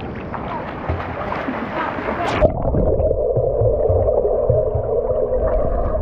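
Water sloshing and gurgling. About two and a half seconds in there is a sharp splash, after which the sound turns dull and steady, a low bubbling churn.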